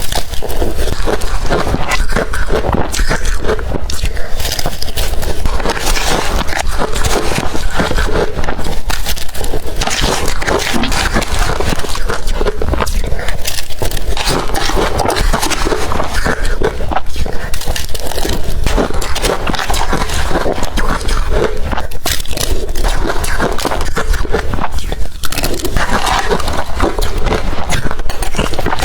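Blender-crushed ice being bitten and crunched in the mouth, a dense, continuous crackling with many sharp crunches, between swallows.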